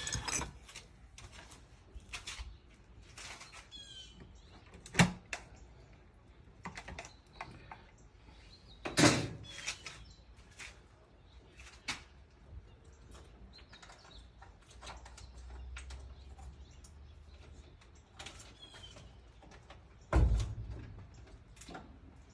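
Scattered clicks, taps and knocks of parts and tools being handled and set down on a workbench, with louder knocks about five, nine and twenty seconds in.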